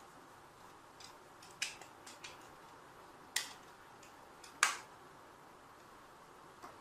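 Sharp plastic clicks and taps as the case of a Craftsman garage-door remote is handled, about five spread over the few seconds, the loudest about two-thirds of the way in, over a faint steady hiss.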